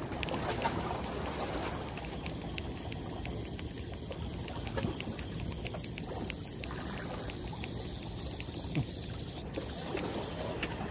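Spinning reel being wound in, with a quick, regular ticking from the reel that starts about two seconds in and stops near the end. Underneath is a steady wash of wind and sea water lapping at the breakwater.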